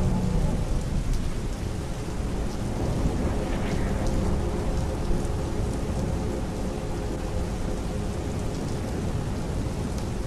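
Steady rain with a low rumble of thunder, loudest at the start and slowly dying away, over scattered raindrop ticks.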